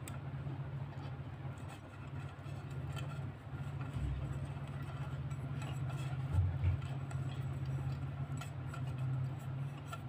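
Scattered light clicks and taps of hands handling a desk lamp's plastic base and its wiring, with a soft bump about four seconds in and another about six and a half seconds in, over a steady low hum.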